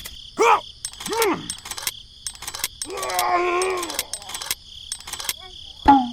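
Wordless voice sounds: two short rising-and-falling cries, then a longer held moan, then short repeated calls near the end, over a steady high insect chirring with scattered clicks.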